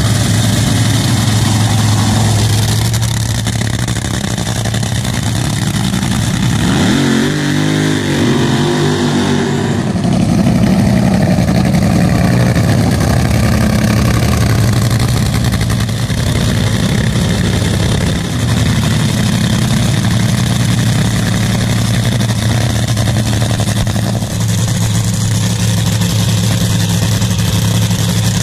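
Top Fuel dragster's supercharged nitromethane V8 idling with a steady heavy rumble, its pitch rising briefly about seven seconds in.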